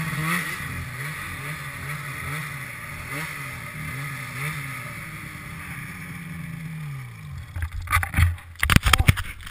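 Arctic Cat ProClimb mountain snowmobile engine working in deep powder under quick throttle blips, its pitch rising and falling about every half-second, then winding down about seven seconds in. Loud, irregular thumps and rumbles on the microphone follow near the end.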